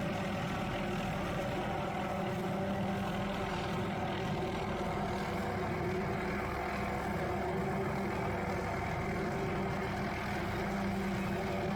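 Helicopter working an aerial tree-trimming saw: a steady engine and rotor sound that holds an even pitch, with no change in level.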